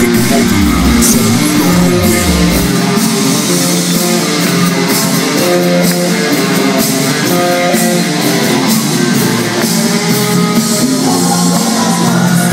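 Loud dance music with guitar played over a DJ's sound system; the deep bass drops out a few seconds in.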